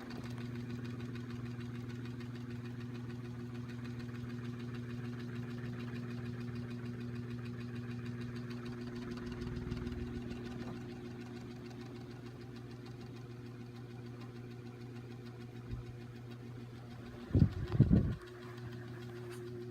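Portable ceiling fan running with a steady motor hum. Near the end comes a brief cluster of loud knocks.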